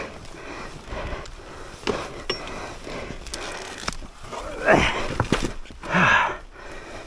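A person breathing heavily and panting with effort, with two louder grunting breaths about two-thirds of the way through. Scattered sharp knocks and clacks run throughout.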